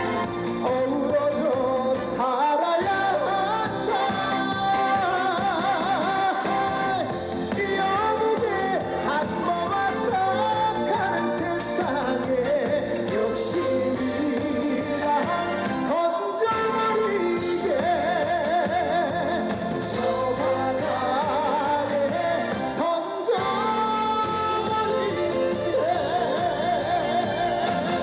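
A live song with a solo voice singing wavering, vibrato-laden lines over full band accompaniment, with short breaks between phrases.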